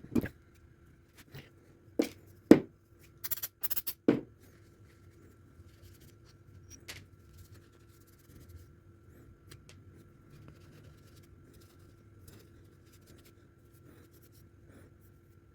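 An electric fan being taken apart by hand: several sharp clicks and knocks of its parts in the first few seconds, then faint scraping and handling.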